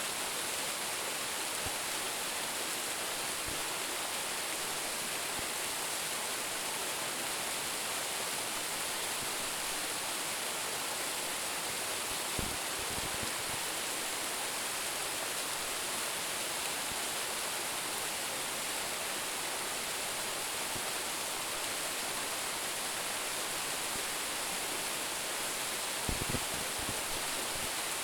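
Steady, even rush of a small waterfall of about 10 m falling water, with brief low bumps about halfway through and again near the end.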